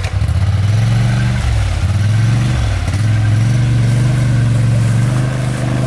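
Polaris Sportsman 850 ATV engine working under load as the quad wades through deep pond water, its pitch dropping and picking up again a few times with the throttle before holding steady and rising slightly near the end.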